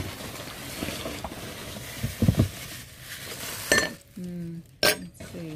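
Packing material rustling and crinkling as things are unwrapped and handled on a table, with a few light knocks, the loudest about two seconds in.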